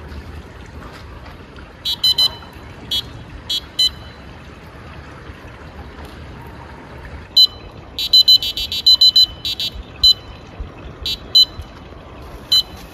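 Electronic bite alarm on a catfishing rod giving short high beeps: a few scattered ones, then a fast run of beeps about halfway through as line is pulled from the rod, the sign of a fish taking the bait. A steady hiss runs underneath.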